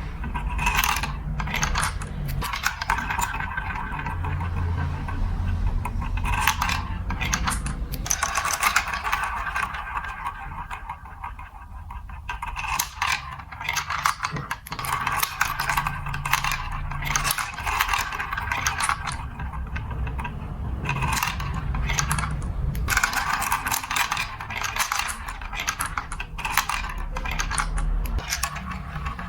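Glass marbles rolling and clattering along a plastic building-block marble-run track, with a steady rolling rumble and frequent sharp clicks as they knock through the pieces.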